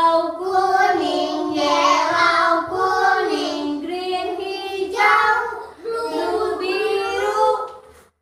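Young children singing a song together with a woman leading them, in phrases with brief breaks between them.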